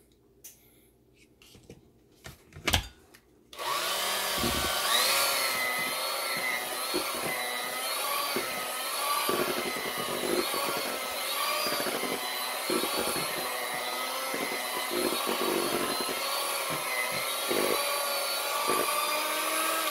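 Handheld electric mixer starting a few seconds in and running steadily, its whine wavering up and down as the beaters work through thick pound cake batter. A few light knocks come before it starts.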